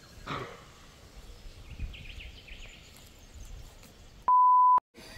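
Quiet bush with a few faint high chirps, then near the end a half-second pure 1 kHz bleep with the field sound muted around it: an edited-in censor bleep.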